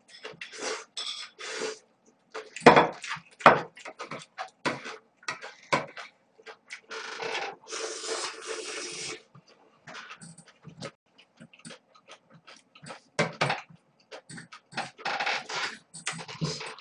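A man eating cold noodles: chewing, short clicks of utensils on dishes, and a long slurp of noodles about seven seconds in. Two sharp knocks around three seconds in are the loudest sounds.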